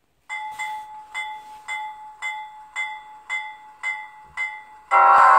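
ESU LokSound V4 sound decoder in an Athearn gas-turbine locomotive model, playing a locomotive bell that rings steadily at about two strokes a second through the model's small speaker. Near the end a loud, steady multi-note horn chord cuts in over it.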